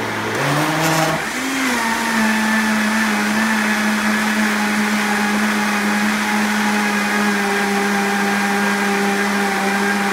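Vitamix blender motor speeding up over the first second or so, its pitch rising in steps, then running steady at high speed as it blends vegetables and fruit into juice.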